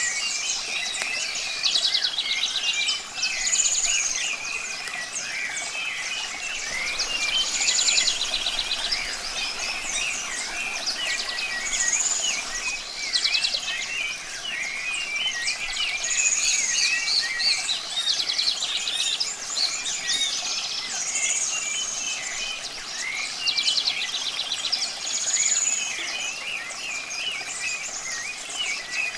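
Many songbirds singing and chirping at once, one high call with a trill coming back about every four seconds, over a steady hiss of running water.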